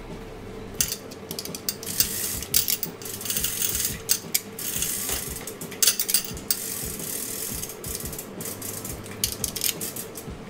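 Hand-operated chain hoist being pulled. Its chain links rattle and its ratchet mechanism clicks rapidly and unevenly for most of the time.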